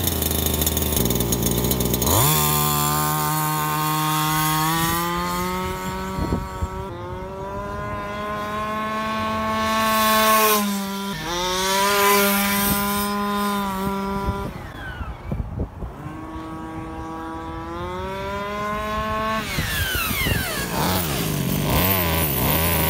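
Redcat Rampage XR Rally 1/5-scale RC car's small two-stroke gas engine idling, then revved up about two seconds in and held at full throttle on speed runs. Its pitch drops away and climbs again several times, and falls back toward idle near the end. The engine is tuned very rich and tops out around 13,300 RPM.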